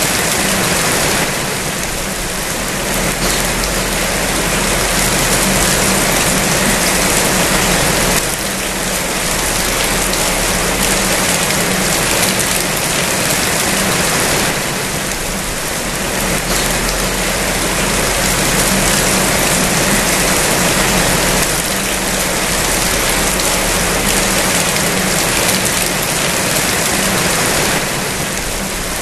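Rain falling steadily, a dense, even hiss that eases a little every six or seven seconds.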